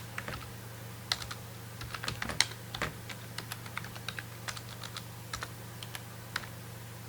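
Typing on a computer keyboard: irregular, quick keystrokes with short pauses, over a steady low hum.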